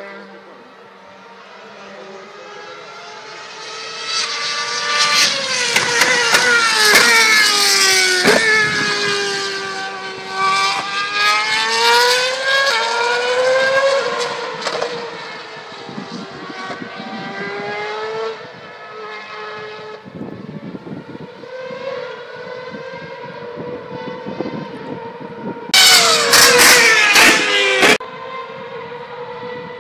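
Formula 1 cars' 2.4-litre V8 engines running at high revs around the circuit, the pitch sweeping up and down through gear changes and passes, loudest about five to fourteen seconds in. About twenty-six seconds in, a sudden much louder stretch lasts about two seconds, then cuts off.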